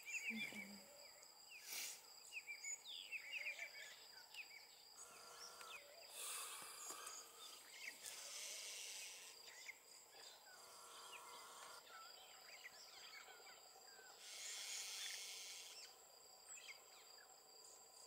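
Faint bush ambience: insects keep up a steady high-pitched drone, with scattered short bird chirps and a few brief swells of hiss.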